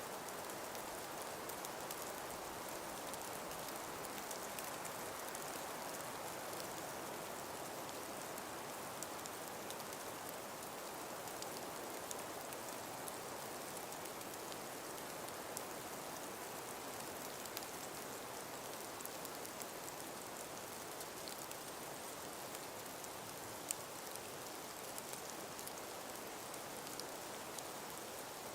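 Steady breeze through a frost- and ice-covered forest: an even hiss with faint scattered small ticks, one a little sharper about three-quarters of the way through.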